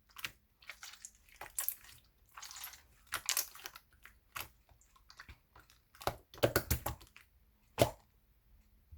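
Hands squeezing and poking slime, making irregular sticky clicks, pops and squelches, with a louder cluster about six seconds in and one more sharp pop near eight seconds.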